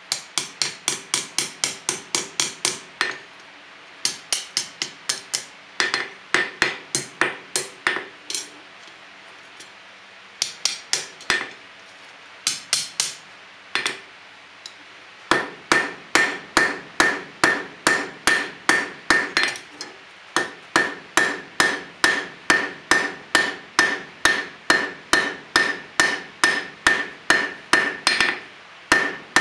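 Hand hammer peening the rivet at the pivot of a pair of forged tongs on an anvil: rapid ringing metal-on-metal strikes, about three to four a second. The strikes come in short runs with pauses at first, then in one long, even run over the second half.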